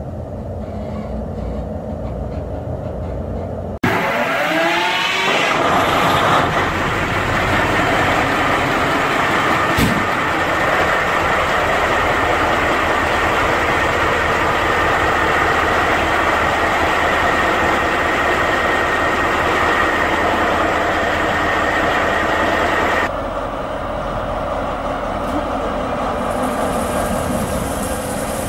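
Diesel locomotive engine sound of a BB 75000 starting up: after a low rumble it changes suddenly about four seconds in, gives a few rising whines, then settles into steady running that drops in level near the end.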